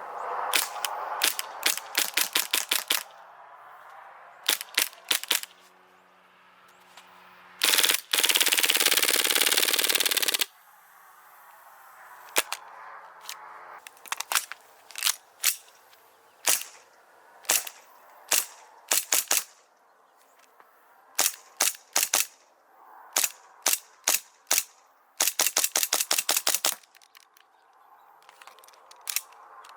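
Airsoft gun shooting, single shots mixed with rapid full-auto strings, including one unbroken burst of about three seconds about a quarter of the way in.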